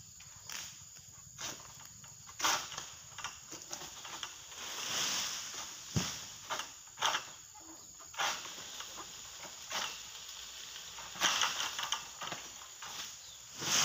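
Dry rustling, scraping and cracking of oil palm fronds as a long-handled harvesting sickle hooks and saws at the palm crown to cut a fruit bunch, in irregular strokes, with a dull knock about six seconds in.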